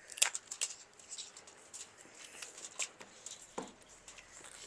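Scattered light clicks and snips of kitchen scissors cutting through a lobster tail's shell, among the small taps of utensils. The sharpest click comes just after the start.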